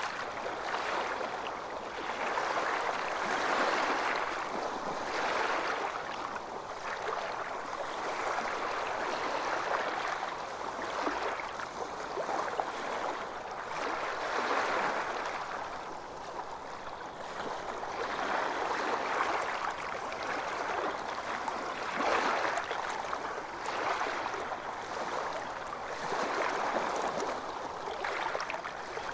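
Calm small waves lapping around yachts, a continuous wash of water that swells and eases every second or two.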